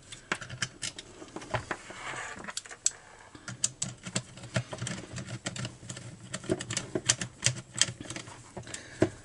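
Screws of a new chainsaw ignition module being driven in by hand with a screwdriver: a run of small, irregular clicks and ticks, several a second.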